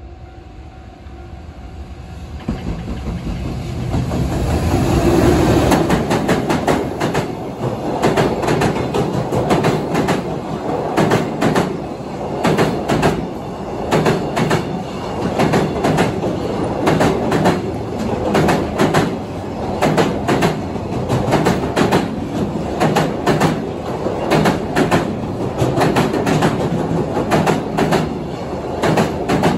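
A train approaching and passing close by. It grows louder over the first few seconds, then its wheels clatter steadily over the rail joints for the rest of the time.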